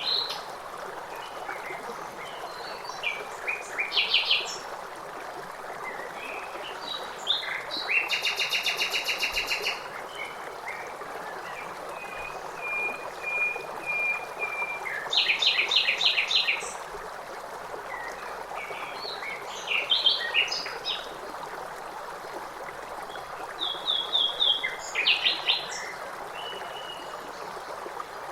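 Several songbirds singing in short, varied phrases, one with a fast, even trill, over a steady rush of running water.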